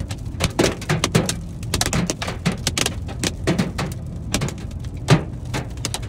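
Raindrops striking a car's windshield and roof in irregular sharp ticks, several a second, over the steady low rumble of the car driving at highway speed.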